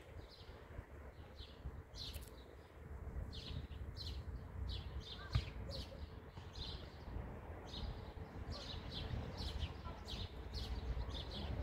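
Small birds chirping over and over, short high chirps several times a second, over a low steady rumble.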